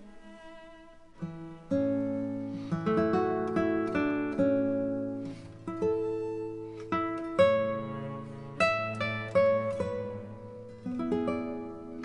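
Background music: plucked notes with sharp starts that ring out and fade, over held low notes, growing fuller about a second and a half in.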